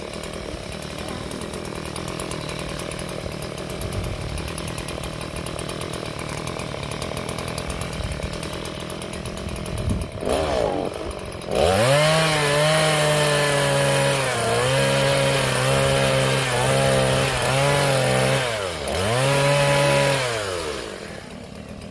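Two-stroke Stihl chainsaw idling, then opened up to full throttle about halfway through as it cuts into a coconut palm trunk. Its pitch dips again and again under the load of the cut, drops briefly near the end of the cut, revs once more, and falls back to idle at the very end.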